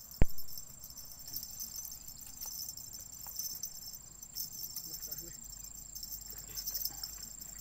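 Insects droning steadily at a high pitch in riverside vegetation, with a single sharp knock just after the start.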